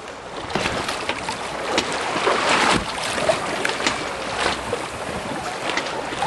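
Wind blowing across the microphone on a boat, with choppy lake water splashing against the hull, louder in gusts around the middle.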